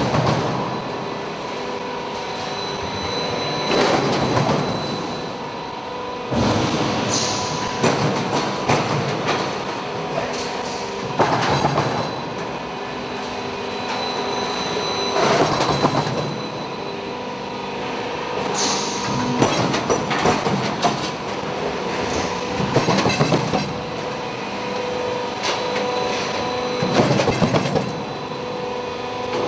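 A sheet-steel roll forming production line running, with a steady machine and hydraulic hum and a loud metallic clanking surge every two to four seconds as the strip is fed and the press works.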